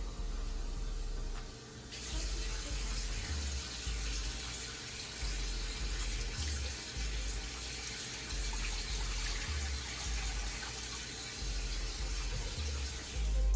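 Water running steadily from a tap into the Instant Pot's inner pot, starting about two seconds in.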